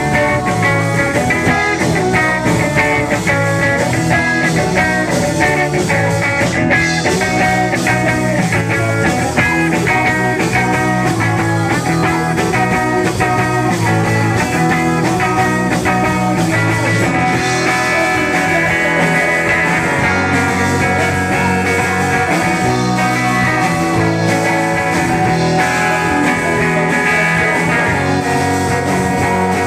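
Live rock band playing loudly: electric guitar, bass guitar and drums.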